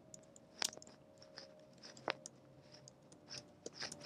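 Faint, irregular keystrokes of typing on a laptop keyboard, a scatter of short clicks with a couple of sharper ones.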